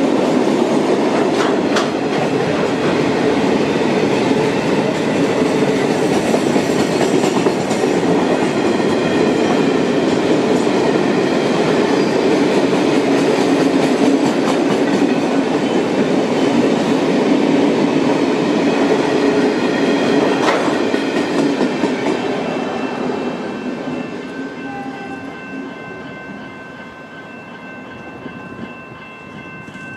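Freight train of empty flat wagons rolling past: a steady loud rumble of steel wheels on the rails with occasional sharp clicks over the rail joints. The sound fades away after the last wagon passes about twenty seconds in.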